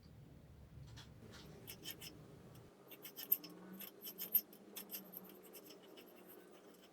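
Faint scratching with light, sharp clicks, over a low hum that stops about two and a half seconds in.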